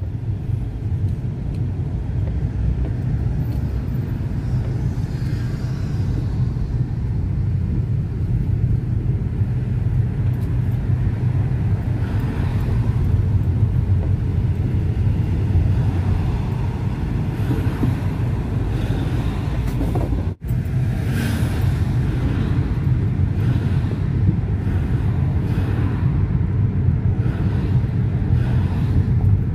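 Steady low rumble of a car being driven, heard from inside the cabin: engine and tyre road noise. About twenty seconds in, the sound cuts out for an instant.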